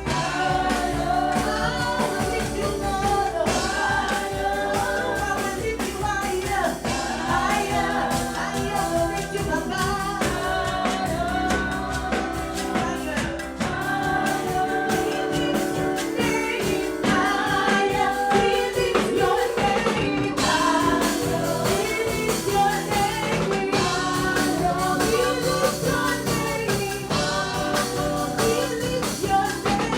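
Gospel music with singing over instruments and a steady drum beat.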